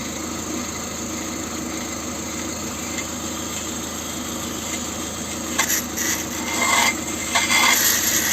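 A spinning car brake disc driven by the idling engine in first gear hums steadily. From about five and a half seconds in, a metal rod held against the disc scrapes and rasps on and off while its runout is checked.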